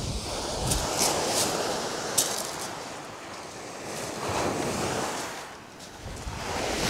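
Sea waves breaking and washing up a shingle beach, swelling about a second in and again about four and a half seconds in, with wind buffeting the microphone and a few light clicks in the first couple of seconds.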